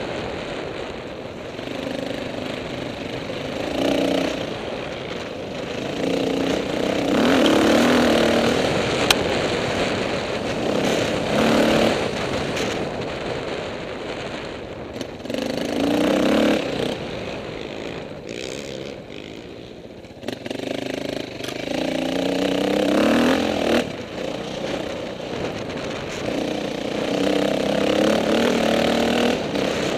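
Off-road dirt bike engines revving and changing pitch as bikes go by, swelling and fading about six times.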